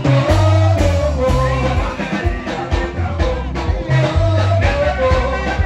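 Live band music: electric bass guitar and keyboard playing a heavy, rhythmic bass line and steady beat, with a man singing into a microphone over the band.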